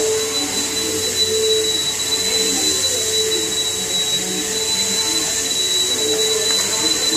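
A steady whirring noise with a constant high-pitched whine and hiss, like a fan or motor running.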